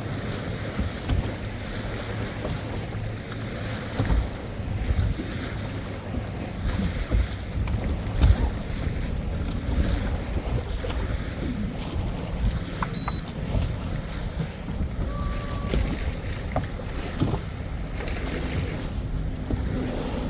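Wind buffeting the phone's microphone: an uneven low rumble that swells in gusts.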